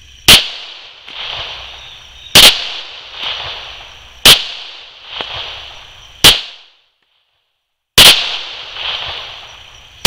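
Colt M1991A1 Series 80 .45 ACP pistol firing slow, evenly paced single shots about two seconds apart, five in all, with a sixth right at the end. Each shot is followed by a softer echo about a second later.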